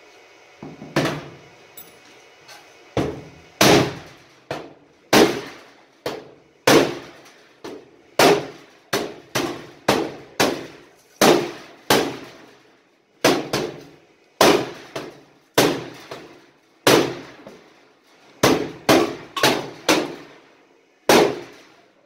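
Hammer blows on the steel body of a Newmac wood stove, knocking the warped, separating seam back in: some thirty sharp strikes at an uneven pace, each ringing briefly.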